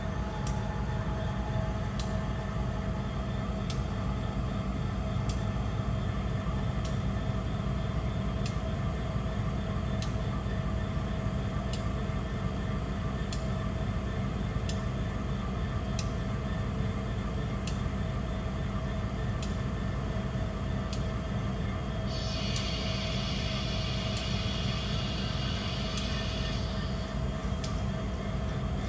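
Kansas City Southern diesel-electric locomotives running slowly during switching, a steady low engine rumble with a sharp click about once a second. A hiss joins in for about five seconds near the end.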